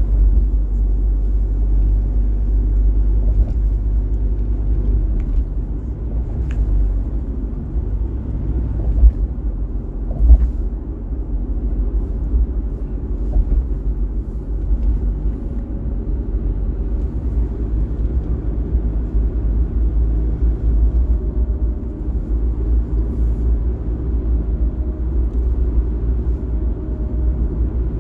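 Road noise of a car driving: a steady low rumble of tyres and engine, with two brief thumps about nine and ten seconds in.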